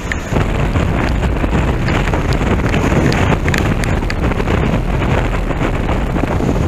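Strong wind buffeting the camera microphone: a loud, steady rumbling noise.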